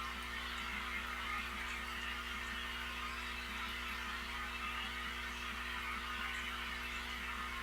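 Aquarium pump running with a steady electrical hum under a constant hiss.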